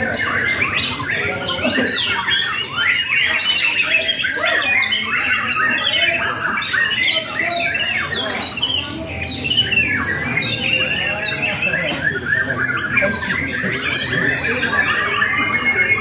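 Many caged songbirds singing at once in a competition, a dense, unbroken tangle of rapid overlapping chirps, whistles and trills.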